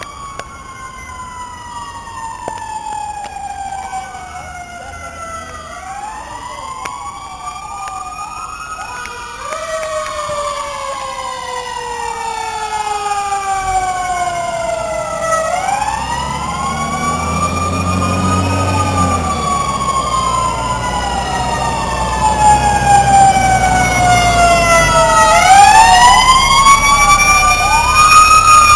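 Several fire truck sirens wailing at once, their rising and falling tones overlapping out of step and growing steadily louder as the trucks approach. From about halfway a heavy truck engine rumbles underneath.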